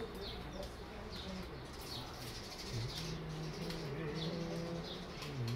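House sparrow chirping: a string of short, falling chirps about two a second. From about halfway through, a low droning sound lies underneath.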